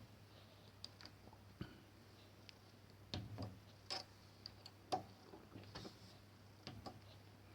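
Faint, irregular clicks and light knocks of metal parts and tools being handled as a small milling setup is taken apart by hand, the clearest about three and five seconds in.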